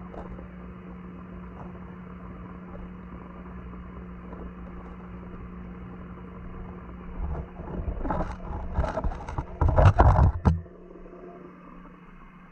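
Underwater pond recording: a steady low hum, then from about seven seconds a run of loud rumbling knocks and churning water as the camera is shifted underwater. The knocks stop suddenly about ten and a half seconds in.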